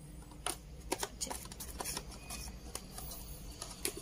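Cardboard and paper packaging of a smartphone box being handled: a string of light taps and clicks with soft rustling as the insert is lifted out of the box.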